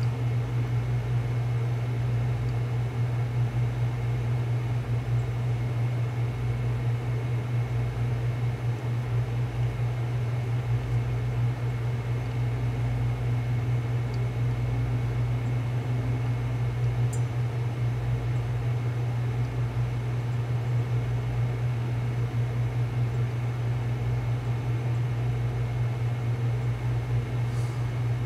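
A steady low machine hum with an even hiss over it, like a small fan or other equipment running.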